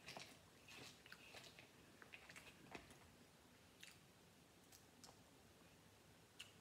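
Faint, scattered clicks and crackles of boiled seafood shell being cracked and peeled by hand, with quiet chewing.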